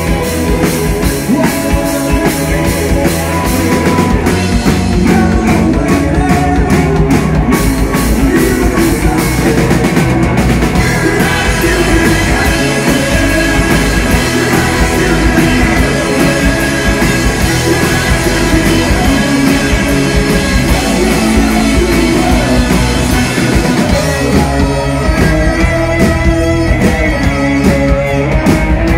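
Loud live rock band playing, with electric guitar, drum kit and singing.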